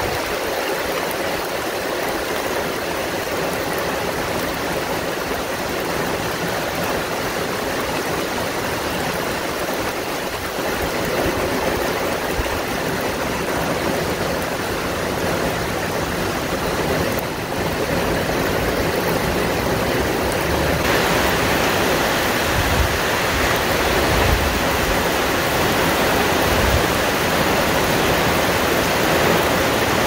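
Heavy rain falling steadily on forest foliage, with gusts of wind rumbling low. The downpour grows louder about two-thirds of the way in.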